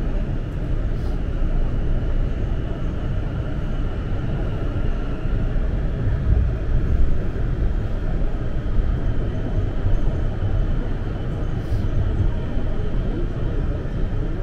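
Toronto subway car running through a tunnel, heard from inside the car: a steady rumble of wheels on rail with a faint high whine.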